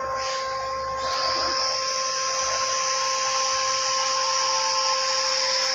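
CNC lathe running with a steady whine, joined about a second in by a steady high hiss.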